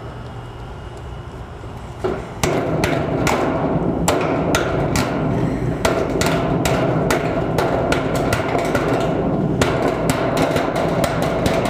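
Body hammer tapping dents out of a sheet-metal carport roof panel: sharp metal blows, about two or three a second, starting about two seconds in, with the panel ringing between them.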